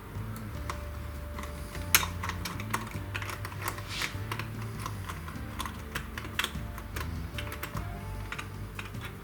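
Irregular sharp clicks and taps of plastic on a laptop's plastic case as the small rubber-and-plastic feet are pried off, about a dozen over several seconds, one louder snap about two seconds in. Background music with steady low notes runs underneath.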